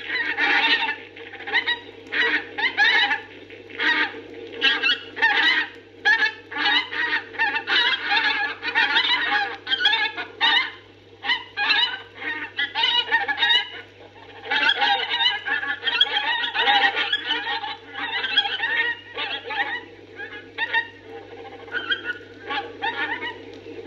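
A flock of domestic geese cackling and honking, many overlapping calls in a continuous chatter, over a steady low hum from the old record.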